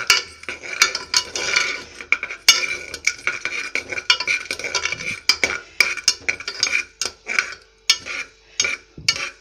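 Steel spatula scraping and clinking against the inside of a metal pressure cooker while sesame seeds are stirred during dry-roasting, in quick irregular strokes with several sharp clinks a second.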